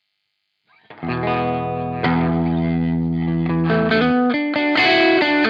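Electric guitar, a Gibson Nighthawk, played through a Jim Dunlop FFM1 Silicon Fuzz Face Mini fuzz pedal into a Marshall Super Lead amp. About a second in, a fuzzed chord rings out. A second chord is struck at about two seconds and held, then a riff of single distorted notes begins.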